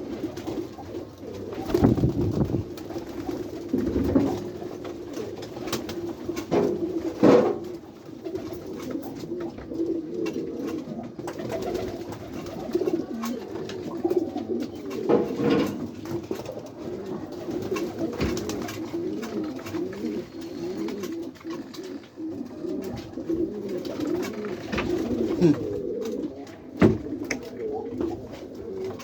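Many domestic white pigeons cooing continuously in the loft, their calls overlapping. Several brief, louder thumps or flaps are scattered through.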